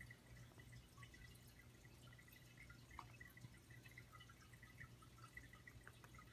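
Near silence: room tone with a faint steady low hum and a few scattered faint ticks.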